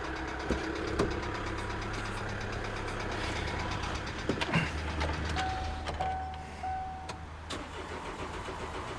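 Kia Sedona 2.9 CRDi diesel engine being stopped and restarted with its camshaft sensor unplugged, running with a low steady hum; the engine has a bad knock. A high warning beep sounds in short pieces a little past the middle.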